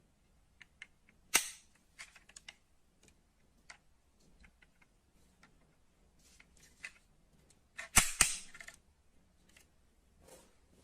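Die-cast metal model cars being handled: scattered small clicks and ticks, with a sharp knock a little over a second in and a louder pair of knocks around eight seconds in.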